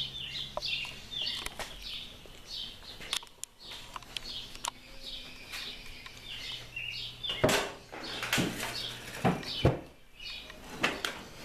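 Songbirds chirping in a morning chorus, many short repeated chirps. About two-thirds of the way through, a cluster of sharp knocks and clicks stands out as the loudest sounds.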